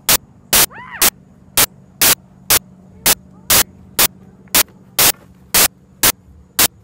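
Sharp, evenly spaced clicks about twice a second over a steady low electrical hum.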